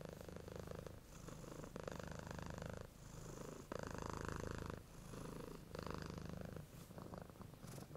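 A domestic cat purring, faint and close, in runs of about a second with short breaks between them.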